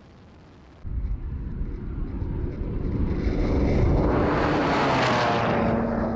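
A BMW E92 coupe's engine running hard as the car slides past on a dirt surface. It starts suddenly about a second in and grows louder, with a rush of tyre and dirt noise as the car passes about four seconds in. The pitch then drops as the car moves away.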